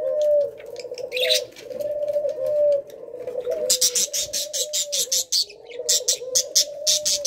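Pet doves cooing in low, drawn-out notes. From about halfway through, small parrots add a quick run of high chirps, several a second.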